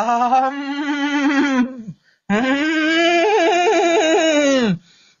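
A person's voice in two long, drawn-out wavering wails, the second longer and warbling quickly in its middle.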